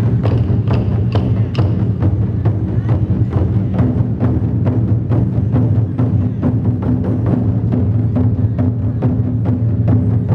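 Ensemble of large Chinese barrel drums beaten with wooden sticks in a steady rhythm, each stroke deep and full, the strokes following one another evenly.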